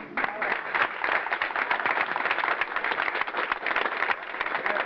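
Audience applauding: dense, steady clapping that breaks out suddenly.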